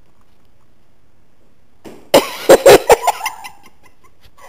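A person close to the microphone makes a quick run of four or five sharp vocal bursts, cough-like, starting about two seconds in and lasting about a second.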